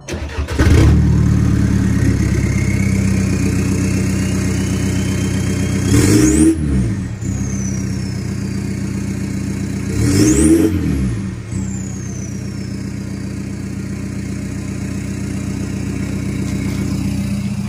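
2012 Volkswagen Golf TDI's 2.0-litre four-cylinder turbodiesel, with aftermarket downpipe, EGR delete and muffler box removed, cold-started: it catches about half a second in and settles into a steady idle. It is blipped twice, at about 6 and 10 seconds in, and with each rev a high turbo whistle climbs and then fades as the revs drop.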